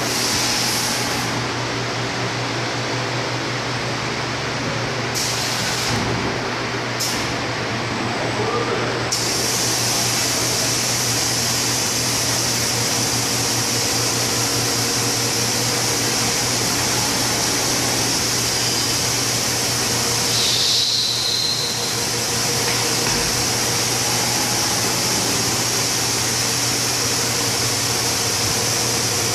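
Coil-cutting machine running: a steady mechanical hum with an even hiss over it, the hiss growing fuller about nine seconds in.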